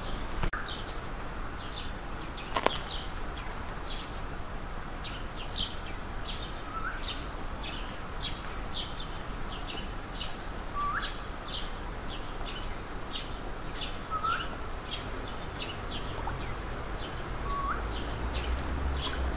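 Ducklings peeping: a continuous run of short, high peeps, several a second, with a lower short rising call about every three to four seconds.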